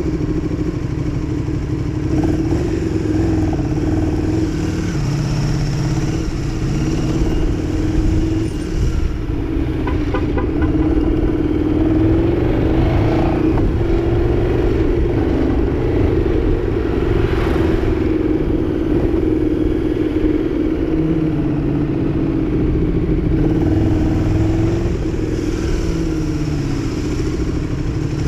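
KTM 1290 Super Duke R's V-twin engine running at low revs, its pitch wavering with the throttle, with two brief revs partway through.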